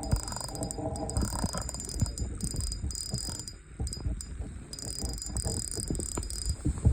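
Small ice-fishing rod reel being cranked against a heavy fish, giving a run of irregular clicks and rattling knocks mixed with close handling noise.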